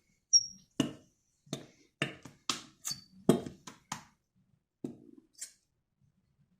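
A plastic glue bottle being knocked and squeezed to get the last of the glue out into a bowl: about ten sharp, irregular taps and knocks, with a brief high squeak near the start.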